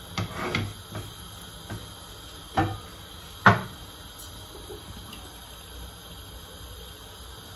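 Kitchen cookware being handled: a few knocks and clatters, the sharpest about three and a half seconds in, then only a faint steady hiss.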